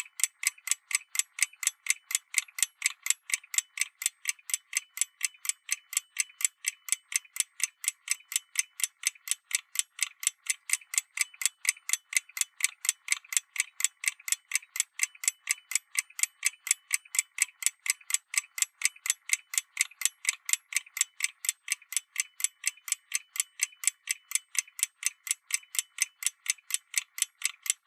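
Clock ticking sound effect for a moving clock hand: a steady run of sharp, high, evenly spaced ticks, several a second.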